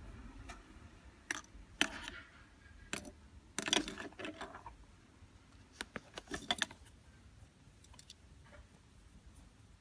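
A keyring being handled, jingling and clicking in short bursts, with two longer rattles about four and six and a half seconds in.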